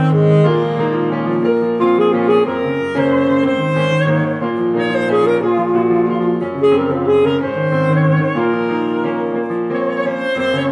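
Alto saxophone playing a slow melody over a piano accompaniment whose low bass notes change every few seconds.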